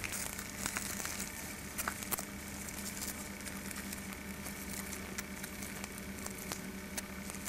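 Steady hiss with a faint low hum, broken by scattered light crackles and clicks.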